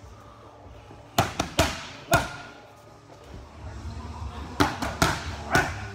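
Boxing gloves smacking focus mitts: two quick combinations of four punches each, about three seconds apart.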